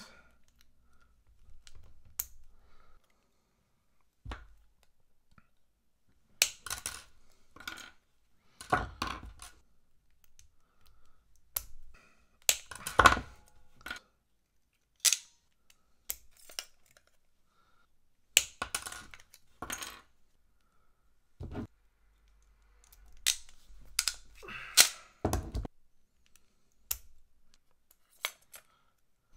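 Irregular sharp clicks, snips and small metal clinks of hand tools at work on Anderson Powerpole connectors: flush cutters snipping wire and crimping contacts, with small metal parts handled on a wooden desk. About a dozen separate clicks with quiet gaps between them.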